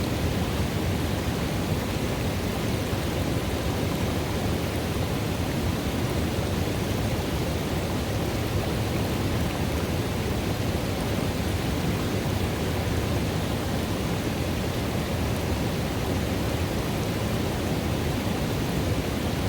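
River water running into a pool: a steady, unbroken rush, weighted toward the low end.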